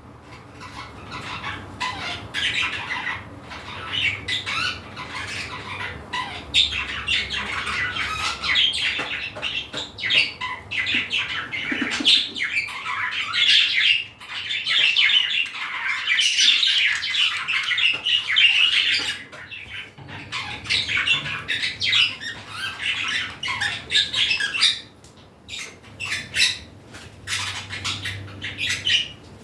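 Pet budgerigars chattering, with several birds calling over one another almost without a break and a few short lulls.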